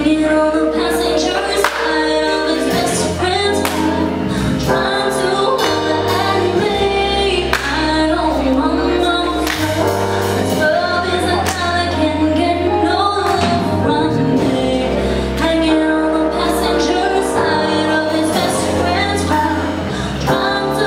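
A live band playing a song, with a woman singing lead over electric bass, keyboard and drums.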